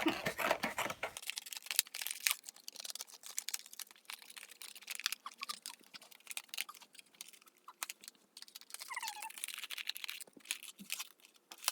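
Plastic and cardboard toy packaging being handled and pried open: a run of irregular small clicks, crinkles and crackles.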